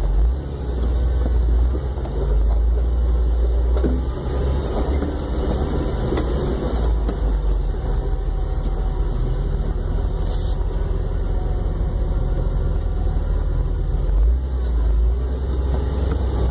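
Off-road vehicle engine running at low speed while crawling up a rough dirt trail, heard from inside the vehicle as a steady low rumble. There are a few faint knocks along the way.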